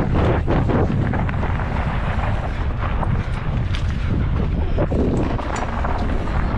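Wind buffeting the microphone during a downhill mountain bike descent, with tyres running over a loose, dusty dirt trail and frequent short rattles and knocks from the bike over bumps.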